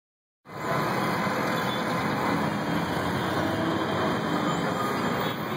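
Steady rumble of city street traffic with heavy vehicle engines running, starting about half a second in.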